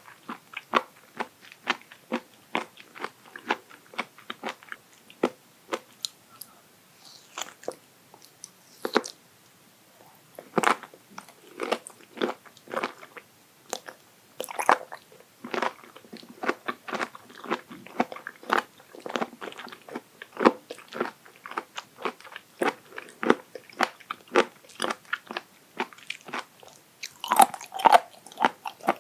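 Close-miked chewing of raw abalone sashimi: crisp, crunchy bites and chews a few times a second. There is a quieter stretch about a quarter of the way in and a louder flurry near the end.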